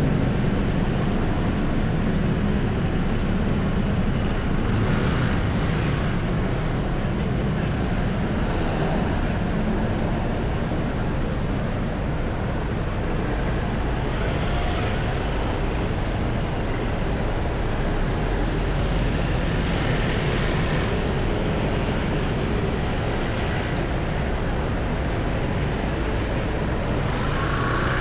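Steady city traffic noise: a constant low rumble of motor vehicles on a busy road.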